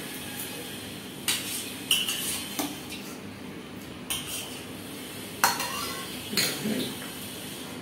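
Metal spoons scraping and clinking against stainless-steel plates while eating, about half a dozen separate scrapes and clinks a second or so apart, the loudest about five and a half seconds in.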